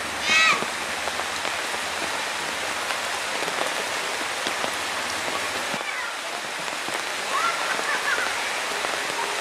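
Heavy rain pouring down in a steady hiss. About half a second in comes a short, loud, high-pitched shout, and a few more voices call out briefly near the end.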